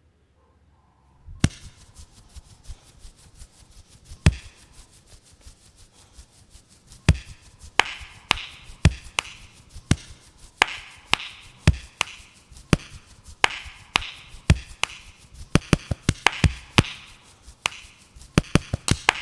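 A run of sharp taps and knocks, sparse at first and growing quicker and denser, with short hissy bursts between them.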